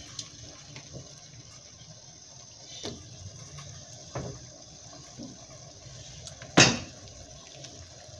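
Pieces of raw pork dropped into a stainless steel pot of hot water: a few soft splashes, with one much louder splash late on.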